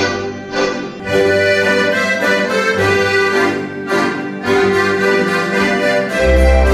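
School instrumental ensemble of acoustic guitars, accordions and a cello playing a tune, with held accordion chords. A deep bass note swells in about six seconds in.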